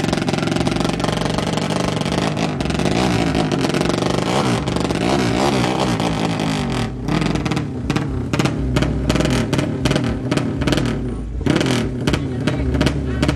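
Racing 200cc drag bike engine revving hard while the bike is held at the start line, its pitch swinging up and down. From about halfway the throttle is blipped in short sharp bursts, about four a second.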